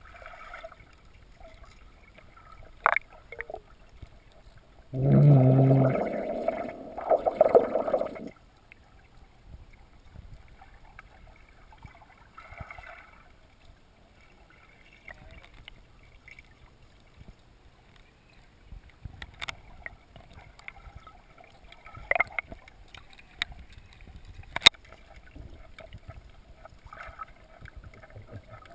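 Muffled water gurgling and sloshing around swimming dogs, with scattered sharp clicks and knocks. About five seconds in, a loud, low, pitched voice-like sound lasts roughly three seconds.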